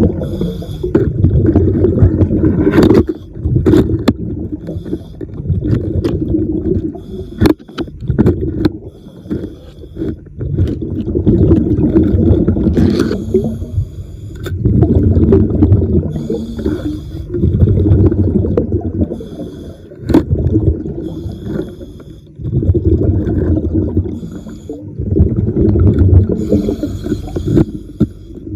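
A diver breathing through a regulator underwater: exhaled bubbles rumble out in bursts every two to three seconds, with a hiss of air on the in-breaths between them. Sharp clicks and scrapes come through here and there.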